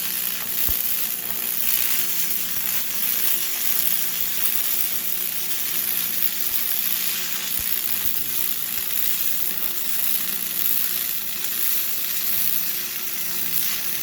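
Electric arc welding on steel plate: a steady crackling sizzle that runs without a break, with a faint low hum underneath.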